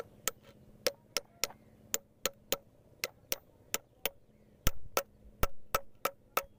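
Steel hammer striking a power tiller clutch release bearing seated in its lever, steel on steel: about three quick blows a second, unevenly spaced, with a couple of heavier thudding blows in the second half.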